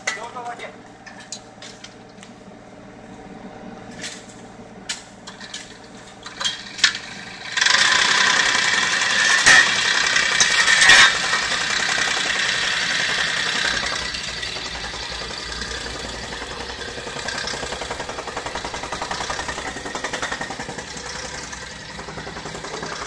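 Construction machinery engines running: a steady engine hum with sharp clinks of hand tools over the first few seconds. About eight seconds in, a much louder, even rushing machine noise starts; it eases somewhat after about fourteen seconds and carries on.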